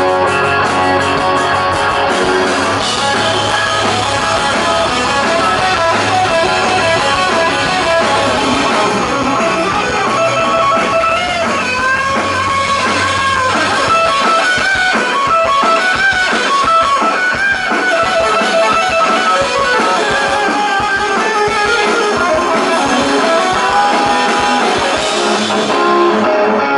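Live rock band playing: electric guitars over a drum kit, loud and steady, with the deep bass thinning out about halfway through.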